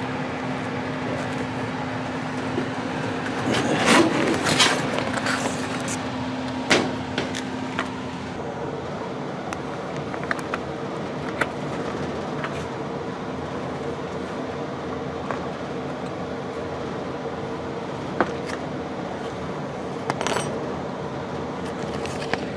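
Handling noise from a pleated furnace filter being fitted over the furnace's air intake: scrapes, rustles and sharp clicks, busiest a few seconds in and again near the end, over a steady machine hum with a low tone.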